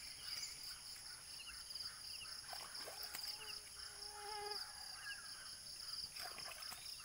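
Steady chorus of insects trilling in a fast, high pulsing drone, with a few faint bird chirps and a brief whistle-like call a few seconds in.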